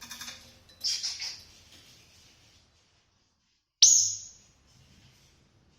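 African grey parrot sounds: a short breathy burst about a second in, then a louder, sudden sharp sound with a high ringing tail that fades near four seconds in.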